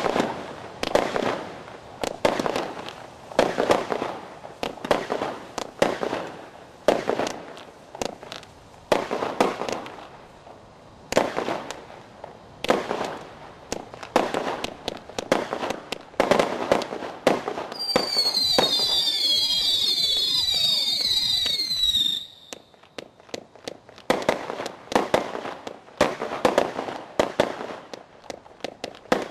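Monaco Magic 100-shot firework cake firing shot after shot, a sharp bang about every second. Partway through, a volley of whistling shots sounds for about four seconds, many high whistles overlapping, each falling a little in pitch, then the single bangs carry on.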